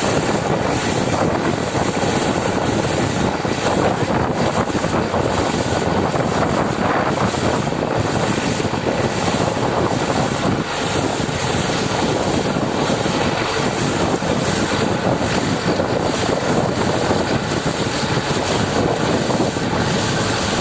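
Borewell drilling rig and its air compressor running, a loud steady noise.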